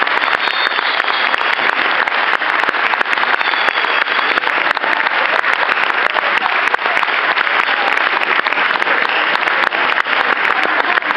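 Audience applauding steadily, many hands clapping without a break, as the cast takes its curtain-call bow.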